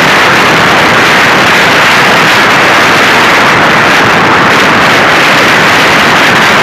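Motorcycle at highway speed: steady, loud wind noise buffeting the microphone, mixed with road and engine noise, with no distinct engine note standing out.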